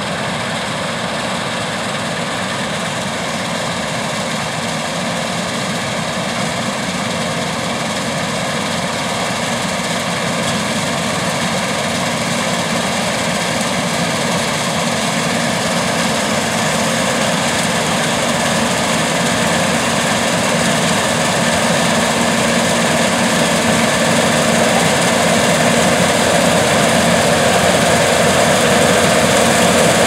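New Holland CR8090 twin-rotor combine running steadily under load while harvesting soybeans: a continuous machine drone of engine, rotors and header that grows gradually louder as the combine approaches.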